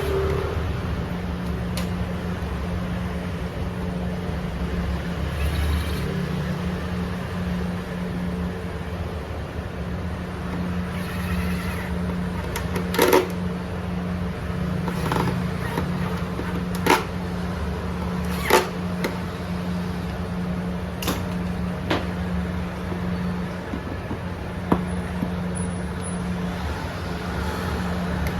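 A steady low hum runs throughout, with scattered sharp clicks and knocks from tools and parts being handled during scooter maintenance, mostly in the second half.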